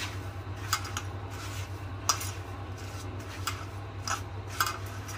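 A hand rubbing a dry semolina and sugar mixture in a stainless steel bowl: a soft gritty rustle, with about five light clicks of fingers or a ring against the metal, over a steady low hum.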